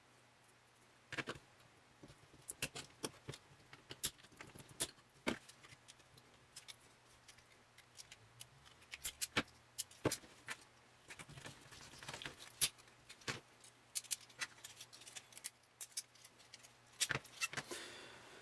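Irregular sharp metallic clicks and snaps as spot-welded nickel tabs are pried and broken off the ends of 18650 lithium-ion cells, with scattered clinks of cells and the plastic cell holder being handled.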